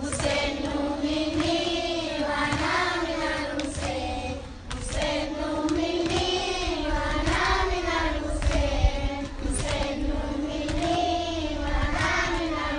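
A group of young children chanting a noha, a Shia lament, in unison to a slow, wavering melody. Sharp slaps land roughly once a second under the chant, the hand strikes of matam.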